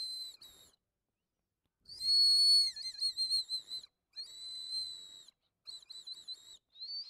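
Ring-shaped Japanese whistle candy blown as a whistle, giving a high, shrill tone. It comes in several blows: a short one at the start, one held about two seconds that wavers in pitch, a steadier one, then a run of quick short toots near the end.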